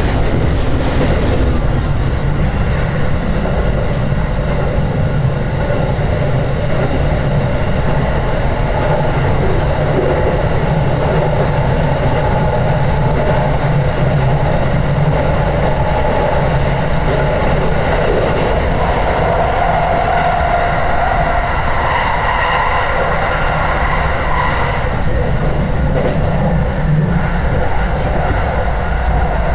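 Steady running noise of a commuter train, heard from inside the carriage: wheels rumbling on the rails as it travels between stations. A faint whine comes in during the second half.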